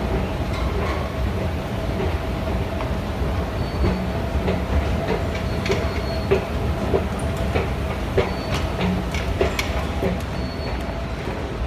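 Metro station ambience: a steady low rumble with a steady hum and scattered clicks and clacks.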